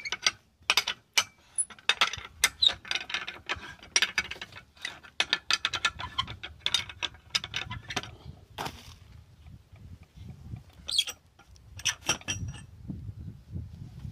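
Irregular metallic clicking and clinking from a chain block's hanging chain and a steel pipe clamp being handled on the pump's delivery pipe as the lower clamp is freed. The clicks come thick and fast for the first several seconds, stop for a moment, and come back as a few sharper clinks near the end.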